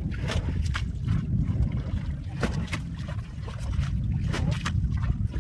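Water being bailed by hand out of a ditch, splashing repeatedly as it is thrown out, over a steady low rumble of wind on the microphone.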